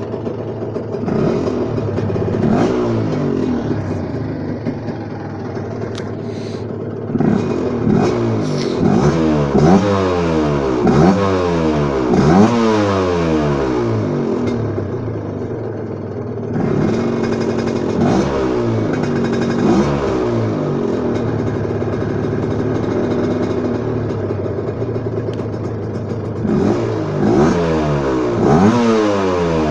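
A Gilera CX 125's two-stroke single revving through a Polini exhaust. Quick throttle blips rise and fall in pitch about once a second in two clusters, with steadier running between them.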